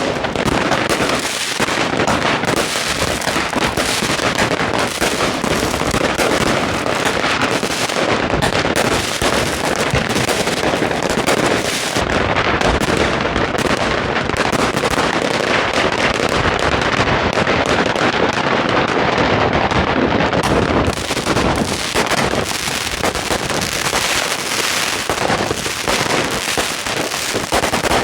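Fireworks and firecrackers going off continuously: a dense, unbroken crackle of bangs and pops layered over one another, loud throughout.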